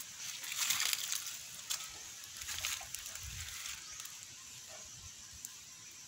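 Rustling and scuffing from footsteps and hands working among twigs and string, loudest in the first second or so and fading after.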